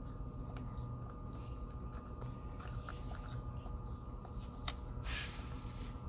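Faint clicks and rustles of hands handling plastic engine parts, plugging in an ignition coil's wiring connector, over a steady low hum. There is a sharper click about two-thirds of the way through, followed by a brief hiss.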